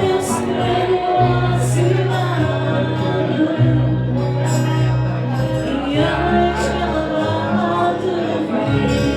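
A fado song being sung with instrumental accompaniment, long bass notes held under the vocal line.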